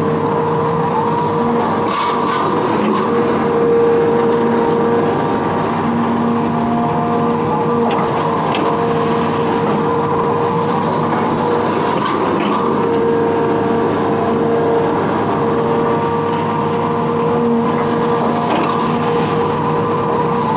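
Hitachi Zaxis 210F amphibious excavator's diesel engine running steadily under work, with a constant droning tone and a few light knocks.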